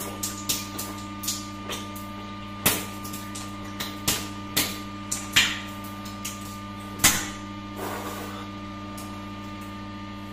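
Raw eggs, shells and all, being crushed in the mouth: sharp irregular cracks and crunches of eggshell, with a wet spatter as egg and shell pieces are spat out. A steady low hum lies underneath.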